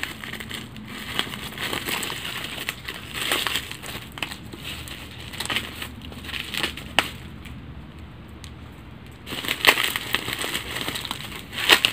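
Plastic bag and brown packing tape crinkling and crackling, with irregular clicks, as the wrapping of a parcel is cut with scissors and then torn and peeled off by hand. The handling goes quieter for a couple of seconds about two thirds of the way in.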